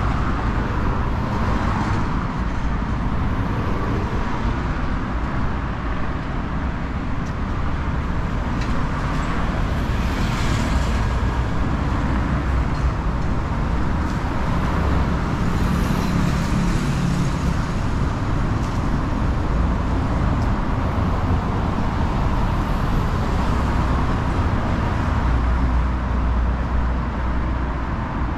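Road traffic: a steady rumble of cars passing on a city street, with louder vehicles going by about ten seconds in and again a few seconds later.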